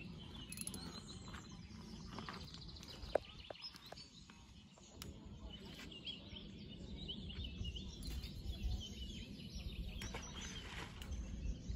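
Songbirds chirping and singing around a lake, over a low rumbling background that grows louder in the second half, with one sharp click about three seconds in.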